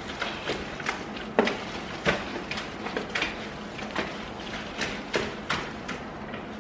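Slime mixture being stirred and worked in a container: irregular clicks and knocks, roughly one or two a second, over a low steady hum.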